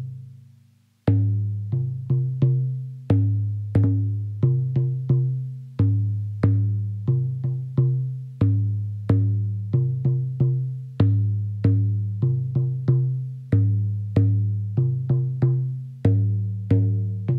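Drum music: low-pitched drums struck in a steady repeating rhythm, each stroke a deep ringing tone that dies away, with lighter strokes between the accented beats. The playing pauses briefly at the very start and picks up again about a second in.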